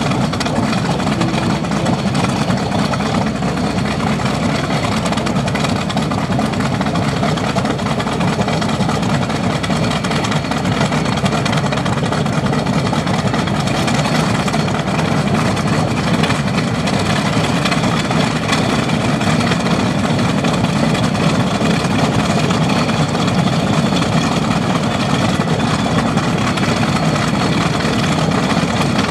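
North American B-25 Mitchell bomber's Wright R-2600 Twin Cyclone 14-cylinder radial engines running steadily at idle, freshly started.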